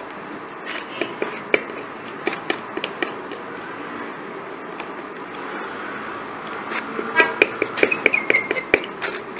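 A steel palette knife scraping, pressing and tapping on a glass sheet as green colour is worked into a lump of plaster paste, with scattered light clicks and a busier run of taps about seven seconds in.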